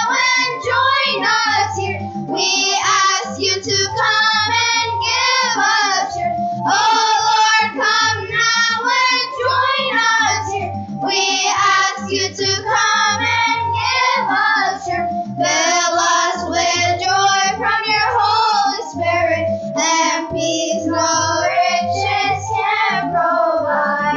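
Children's choir of about eight- to ten-year-olds singing a song together, amplified through handheld microphones.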